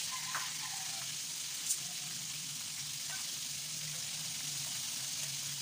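Battered chicken pieces deep-frying in hot oil in a pan: a steady sizzle over a low hum, with a sharp tick about a second and a half in.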